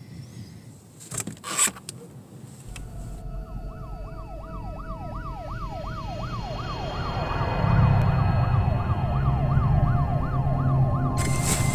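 Police car siren yelping, its pitch sweeping up and down quickly, about three times a second, starting about three seconds in over a low rumble that grows louder. Two short, loud noisy sounds come about a second in.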